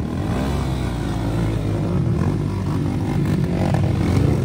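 Several dirt bike engines running close by, their revs rising and falling unevenly as the bikes circle on wet grass.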